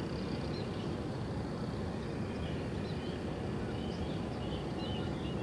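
Steady low outdoor background noise, with faint short bird chirps coming in about halfway through.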